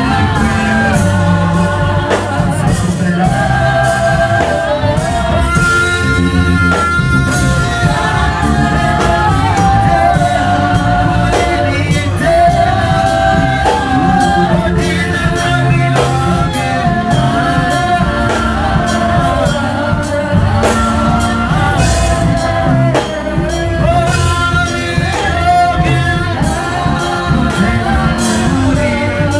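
Contemporary Christian worship song: a voice singing a held, wavering melody over a full band with guitar, loud and continuous.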